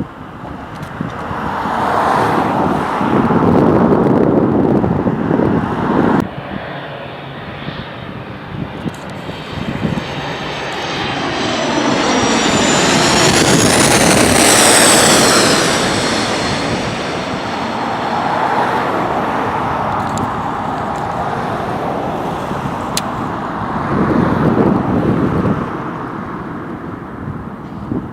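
Jet airliner passing close by, a broad jet rumble swelling and fading with a high engine whine that rises to a peak about halfway through and then falls away. Shorter bursts of louder rushing noise come early on and near the end.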